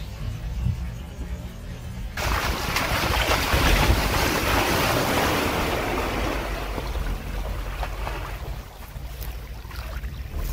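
A 2003 Mitsubishi Pajero iO's tyres ploughing through a deep muddy-water puddle, a loud wash of splashing that starts suddenly about two seconds in, peaks soon after and dies away by about eight seconds, over a low rumble throughout.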